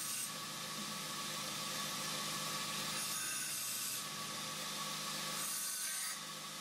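Linisher belt sander running with a steady motor hum while an aluminium angle bracket is deburred against its coarse abrasive belt. A rasping sanding hiss swells in two spells, about three seconds in and near the end.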